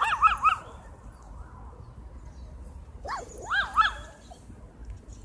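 Small Pekingese dog yapping: a quick run of high-pitched yaps right at the start, then another short run about three seconds in.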